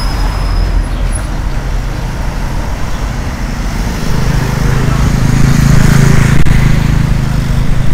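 Road traffic noise. From about halfway, a vehicle engine's low drone grows louder and stays strong to the end.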